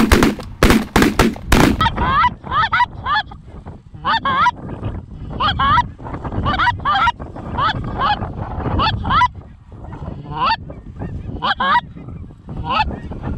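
A volley of about five shotgun shots in under two seconds, fired at geese overhead, followed by geese honking repeatedly in short two- and three-note calls.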